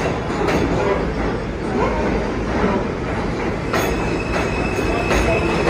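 R160 subway train pulling slowly into a station platform and running with a steady rumble. About two-thirds of the way in, a steady high squeal sets in, along with a few sharp clacks.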